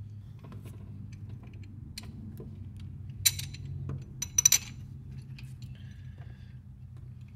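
Metal bolts clicking and clinking against a power steering pump and its aluminum mounting bracket as they are fitted and started by hand, with the sharpest clinks about three seconds in and a quick run of them about four and a half seconds in. A steady low hum runs underneath.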